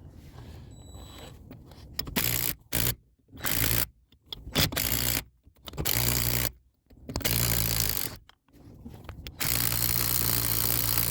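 A power tool's motor running in about six bursts of under a second to two seconds each, with abrupt stops between them, spinning loosened rusted lug nuts off the wheel studs.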